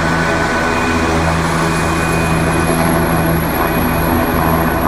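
AgustaWestland AW169 twin-turbine helicopter running at high power on the ground and lifting off, a steady rotor roar over a low hum. A thin high turbine whine comes in about two seconds in.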